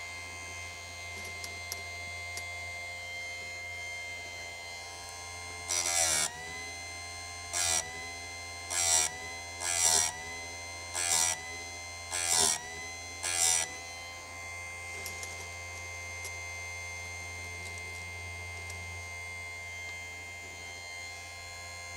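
Electric chain-sharpening machine (Sturm BG6060) running with a steady motor whine. From about six seconds in come seven short grinds about a second apart: the abrasive wheel bites into the chainsaw chain's cutter teeth, and the motor pitch dips under load each time. After that the wheel spins free.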